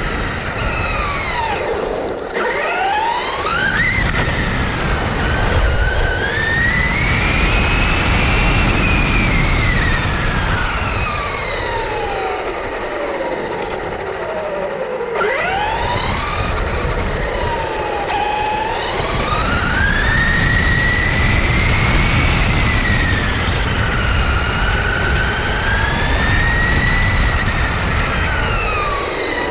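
Brushless electric motor and gear drive of a Traxxas Rustler RC car whining, its pitch surging up and falling back several times with the throttle, over a steady low rush of tyre and wind noise.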